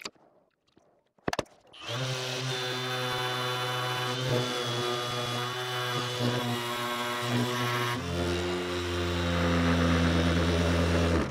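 Bosch GEX 18V-125 cordless random orbit sander on full speed setting 6, sanding wood with 80-grit paper: a steady motor hum with a high whine, starting about two seconds in after a near-quiet start with a brief click. About eight seconds in it drops lower in pitch and gets a little louder, and it cuts off abruptly at the end.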